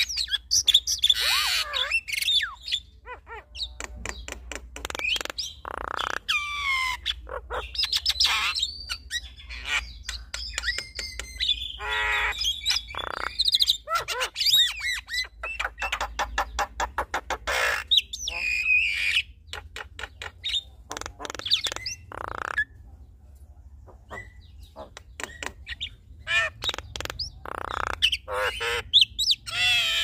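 Javan mynas, a male and a female, calling back and forth: a busy mix of gliding whistles, harsh squawks and rapid clicking chatter, with a quieter spell about two-thirds of the way through.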